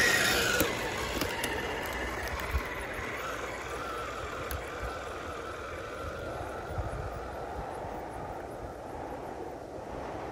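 Electric motor and gearbox of a 1:10 scale RC crawler whining as it drives, loud at first and fading over the first few seconds, its pitch dropping lower in the middle.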